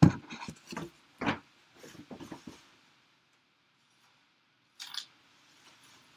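Knocks and rustling from a person getting up from a desk and moving off. There is a loud knock at the very start and a few softer knocks and rustles over the next two and a half seconds. About five seconds in comes one sharp click.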